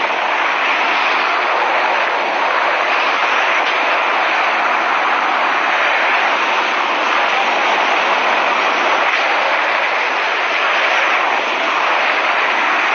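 Steady loud rush of wind over a camera microphone that is flying fast down a mountainside, following a speed rider.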